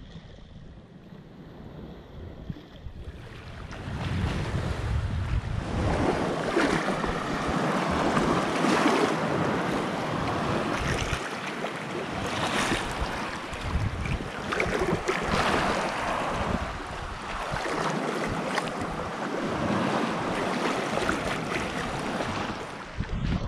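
Small lake waves lapping and washing over rocks and pebbles at the water's edge, quieter at first and louder from about three seconds in, with wind rumbling on the microphone.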